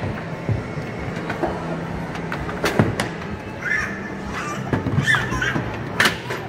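Arcade din around an Ice-Ball lane game: hard balls rolled up the lane and knocking, with a few sharp clacks, the loudest about three seconds in and near the end, over a steady hum of the machines. Short high chirping sounds come in the middle.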